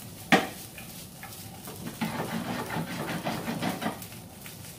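Spaghetti being stirred and tossed with a wooden fork in a frying pan over a gas burner, with a sharp knock just after the start.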